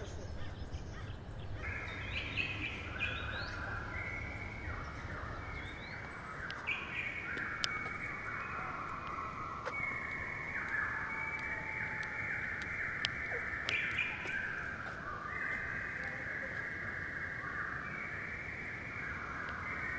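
Forest birds calling and chirping together in a dense, overlapping chorus of clear, steady-pitched notes that starts about two seconds in.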